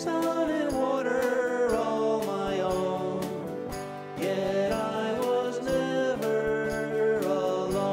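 Folk song played on a 12-string Rickenbacker electric guitar, with a wavering melody line over the chords and a steady beat.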